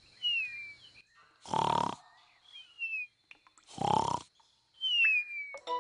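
Cartoon snoring: two rough snores rising in pitch on the in-breath, each answered by a thin, falling whistle on the out-breath, in a slow steady cycle of about two seconds.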